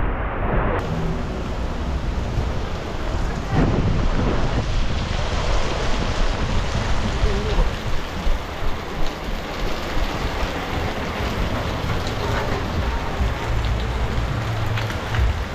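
Steady rain noise with a low rumble running underneath.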